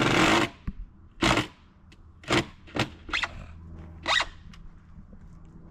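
Six short, sharp bursts, spaced from under a second to about a second apart, over a faint low hum. They follow a loud engine-like sound that cuts off about half a second in.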